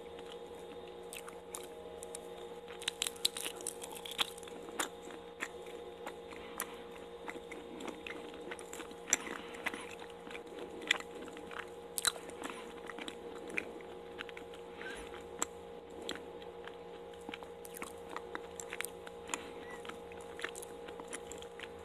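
Close-miked chewing of a soft, chewy daifuku mochi (sweet rice cake): irregular wet mouth clicks and smacks. A steady low hum runs underneath.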